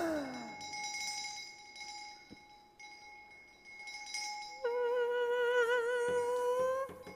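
Contemporary concert music. At the start a falling glide dies away into faint glassy ringing tones. About halfway through, a bowed cello holds one high note with vibrato for a couple of seconds, then stops.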